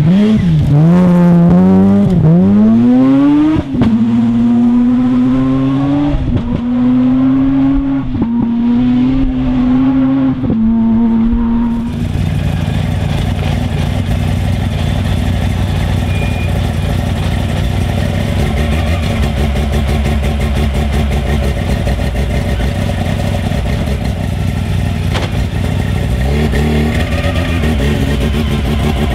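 Mazda RX-7's Wankel rotary engine at high revs: it climbs steeply through the revs, lifts briefly about three and a half seconds in, then holds high with a few short dips. About twelve seconds in the sound cuts to the same rotary engine running steadily at low revs.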